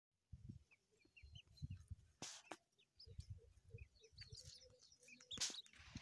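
Faint, soft chirps and short gliding call notes from grey francolins (teetar partridges), over low muffled bumps, with brief rustles about two seconds in and again near the end.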